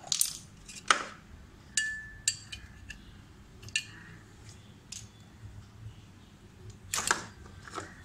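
Scattered sharp clicks and light clinks of a refrigerator compressor's plastic starting relay and overload protector being pulled off the terminal pins and handled, with wires shifted about. The clicks are spaced out, with a quick cluster of them about seven seconds in.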